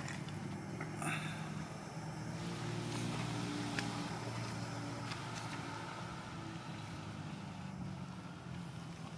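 A motor vehicle's engine running steadily, a little louder about three to five seconds in, with a few faint clicks.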